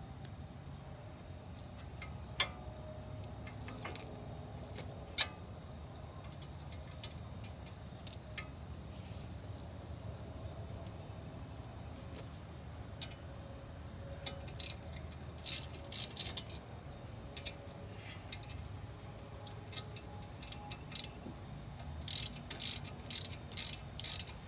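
Scattered metallic clicks and clinks of hand tools on the brake caliper as its bolts are worked back in, with short runs of quick clicking in the second half and a denser run near the end, over a low steady hum.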